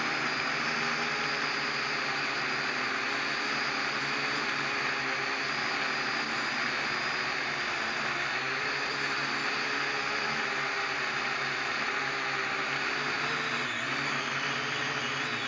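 Quadcopter drone's motors and propellers whirring steadily in flight, heard through the drone's own camera microphone, with a few held tones in the whir.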